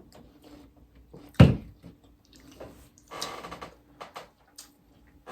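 Close-miked eating and handling noises at a table: scattered soft clicks and mouth sounds, a dull thump about a second and a half in, and a brief crunch or rustle around three seconds in.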